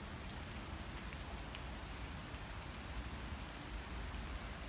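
Light rain falling: a steady even hiss with a few faint drop ticks, over a low rumble on the microphone.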